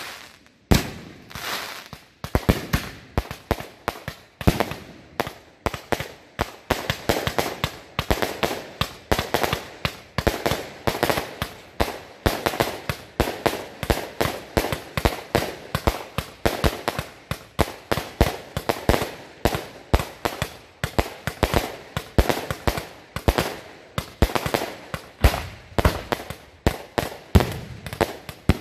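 A 100-shot Lidu Thunder King 1.3G firework cake firing its shots in quick succession, about three or four a second. Each shot is a launch and then a burst in the air, with no break in the string.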